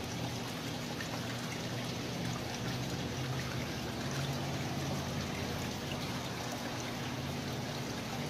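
Water trickling steadily into a koi pond, with a low steady hum underneath.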